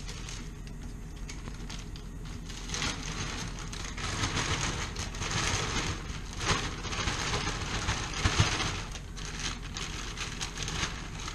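Plastic bag of salad rustling and crinkling as it is shaken and the salad is tipped out onto a plate, with one sharp click about two-thirds of the way through.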